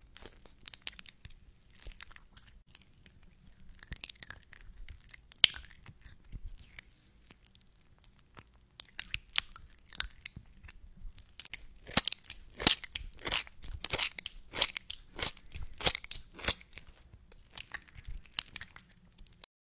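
ASMR lotion sounds: hands slick with lotion rubbed and squeezed together close to the microphone, making irregular sticky clicks. They come sparsely at first, pause briefly, then grow denser and louder in the second half.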